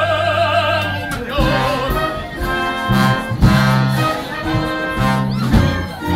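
Operetta music: a singer holds a note with vibrato for about a second, then the orchestra plays on with a rhythmic bass line under the chords.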